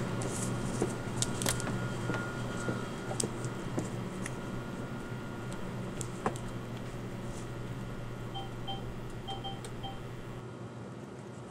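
Steady low electrical hum of a small shop, with scattered light clicks and handling noises. About eight seconds in, an ATM keypad gives about five short beeps as its keys are pressed.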